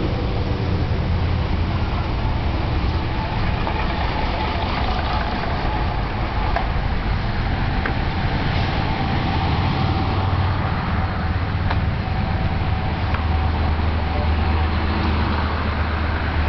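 Steady drone of a bus under way, with road noise and a few faint clicks; the level holds even throughout, with no single vehicle swelling past.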